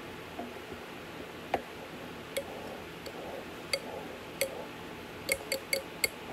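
A metal spoon clinks against a glass mixing bowl of creamy noodles, about eight sharp ringing clicks at uneven spacing that come faster near the end.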